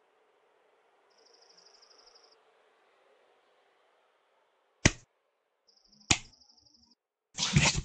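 Cartoon sound effects: two short, high, insect-like chirping trills over a faint hiss, and two sharp clicks, the loudest sounds, about five and six seconds in. A brief noisy burst comes near the end.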